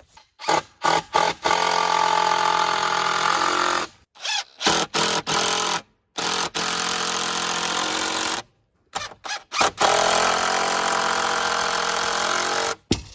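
DeWalt cordless impact driver driving screws into wood. It comes in short trigger pulls and three long runs of about two seconds each, the last ending just before the close.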